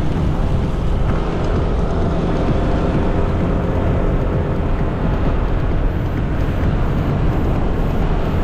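Yamaha Nmax 155 scooter under way: its single-cylinder engine running steadily, mixed with wind and road rumble heavy in the low end, picked up by a camera mounted on the moving scooter.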